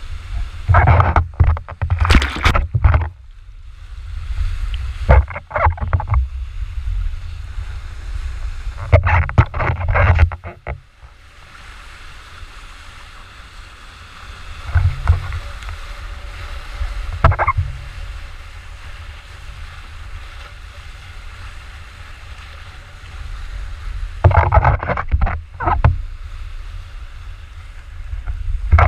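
Stand-up paddleboard riding small breaking waves: rushing whitewater and repeated loud splashes of the paddle and board in the water, over steady wind buffeting on a paddle-mounted camera's microphone.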